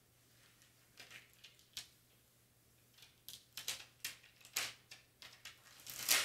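Clear transfer tape crinkling and rustling as hands lay it over vinyl and smooth it down: scattered short crackles, sparse at first and growing louder and more frequent over the last few seconds.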